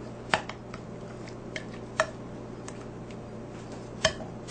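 A few separate light clicks and knocks of a serving spoon being handled against the slow cooker's crock, the clearest about a third of a second in, at about two seconds and a pair near the end, over a steady low hum.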